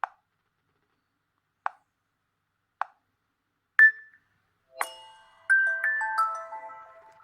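Nokia G20 phone ringtone previews played through the phone's speaker: three short sharp clicks, then a single loud high ding about four seconds in. From about five seconds in comes a quick run of several notes that ring on together and fade.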